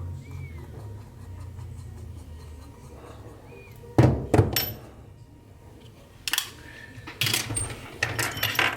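A few sharp knocks and clatters of small hard objects handled on a hard surface: two close together about halfway through, then a run of them near the end.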